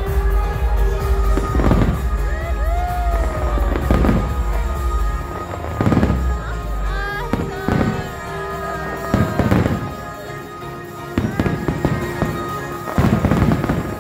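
Aerial fireworks shells bursting in a string of booms about a second or two apart, over the show's music soundtrack.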